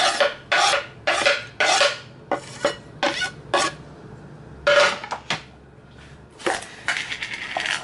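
Chopped walnuts scraped off a wooden cutting board into a ceramic salad bowl, the board rasping and knocking against the bowl's rim in a quick series of short strokes, about two a second. The strokes pause briefly around the middle, then come again with a longer scrape near the end.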